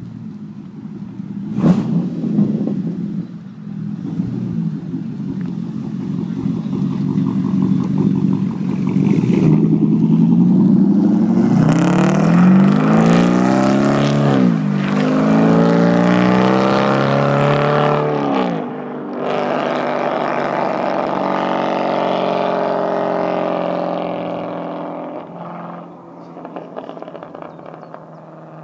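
Sports car engine pulling away, then accelerating hard up through the gears: three rising sweeps, each broken off by an upshift. The engine then holds a steady pitch and fades as the car draws away. A sharp click sounds about two seconds in.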